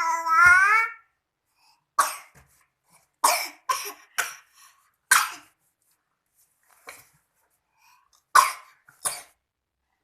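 A child coughing: about seven short coughs, some single and some in quick pairs, after a brief pitched vocal sound in the first second.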